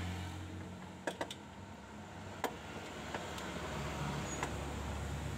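A wrench clinking on bolts under a car: a few separate, sharp metallic clicks over a steady low hum.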